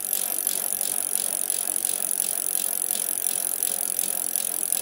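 Bicycle mechanical sound: a steady rattle with regular light ticks a few times a second, typical of a mountain bike's drivetrain.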